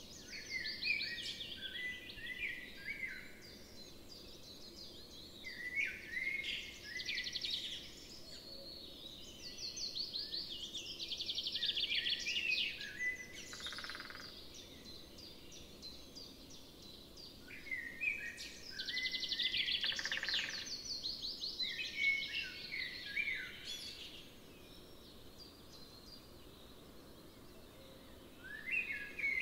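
A songbird singing in several long trilling phrases with pauses between them, over faint outdoor background noise.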